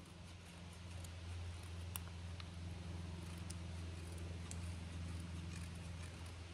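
Knife blade scraping fine shavings off a stick of fatwood to make tinder that will take a spark: a soft, continuous scratching with a few small ticks, over a steady low hum.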